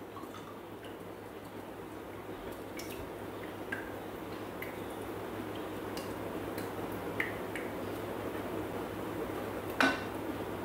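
Olive oil pouring steadily from a glass bottle into a Thermomix's stainless steel mixing bowl, a soft trickle that grows gradually louder. There are a few light clicks and a sharper knock near the end.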